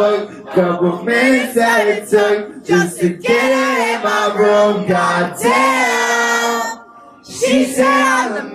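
Singing at a live concert: a sung melody with long held notes, breaking off briefly about seven seconds in before the voices come back.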